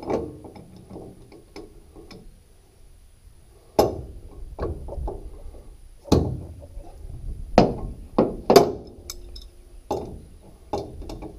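Steel wrench clinking and knocking on the hydraulic hose fitting of a rotary cutter's lift cylinder. There are a few sharp metal strikes a second or two apart, the loudest in the middle stretch, with lighter taps and scrapes between them.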